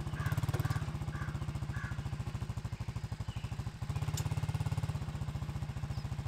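ATV engine running at low speed under load while dragging a rear blade and chisel plow through dirt, its firing pulses steady and fast; it swells louder for a moment at the start and again about four seconds in.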